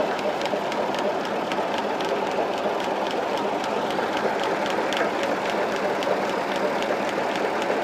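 Massey Ferguson 260 Turbo tractor's diesel engine running steadily, driving a tubewell pump through its rear PTO shaft, with faint repeated ticks over the engine noise.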